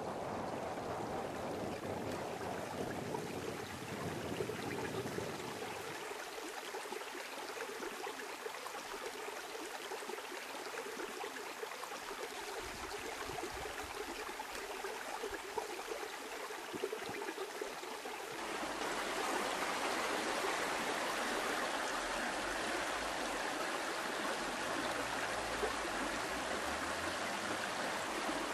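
Shallow mountain stream running over rocks: a steady rush of water. It gets louder and brighter about two-thirds of the way through.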